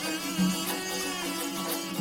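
Background music in a traditional Middle Eastern style: strings playing a melody over a steady low pulse.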